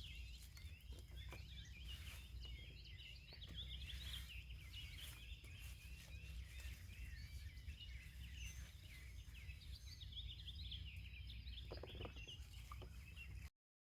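Many songbirds chirping and singing together, over a steady low rumble. The sound cuts off abruptly near the end.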